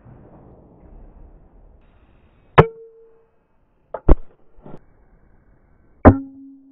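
Three sharp knocks of hard objects, about a second and a half apart, each followed by a brief ringing tone, with a few softer taps between. A fading hiss dies away at the start.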